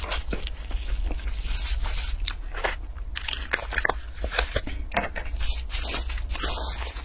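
Plastic cling wrap and a thin clear plastic container crinkling as gloved hands peel them off soft food, mixed with biting and chewing: a dense, irregular run of sharp crackles.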